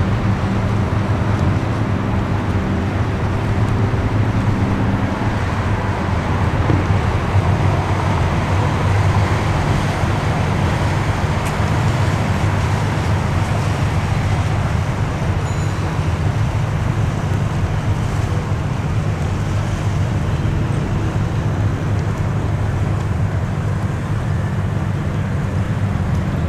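Steady rumble of motor traffic and engines, with a low engine hum underneath that holds throughout.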